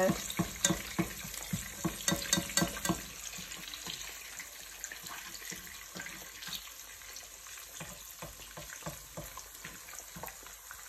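Eggs frying in hot oil in a pan: a steady sizzle full of spattering pops and crackles, louder and busier for the first three seconds, then settling to a quieter, even crackle.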